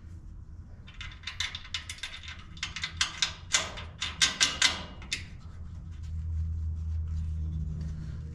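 Hand ratchet wrench clicking in quick, irregular runs while bolts are run in, for about four seconds. A low steady hum comes in near the end.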